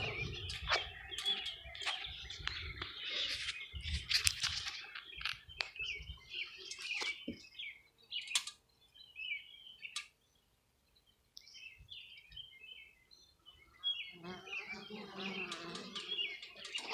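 Small birds chirping and calling, mixed with sharp clicks and a few dull knocks from handling a wooden swarm-trap box in the first few seconds; the sounds drop to a near-silent gap of several seconds in the middle before the chirping resumes.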